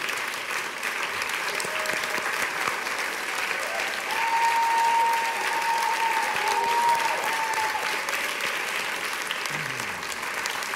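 Studio audience applauding steadily. A thin, steady high tone is held over the clapping for about four seconds in the middle, where the applause is loudest.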